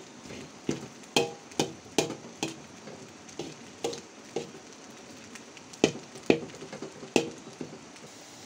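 Metal spatula scraping and knocking against a metal wok as fried rice is stirred and turned, in irregular sharp strikes over a faint frying sizzle. The strikes stop near the end.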